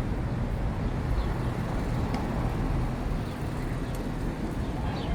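City street ambience on a busy boulevard: a steady wash of road traffic with a low rumble, under the general bustle of the sidewalk.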